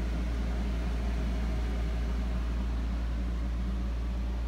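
Electric fan running inside a small camper: a steady low hum with an even airy hiss, unchanging throughout.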